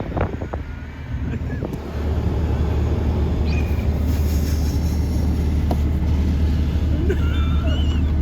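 A vehicle running with a steady low drone, which grows louder about two seconds in and then holds steady.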